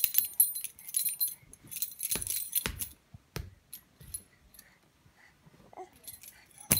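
A bunch of metal keys on a ring jingling in quick shakes for about three seconds, then only a few scattered light clinks, and one sharp click near the end.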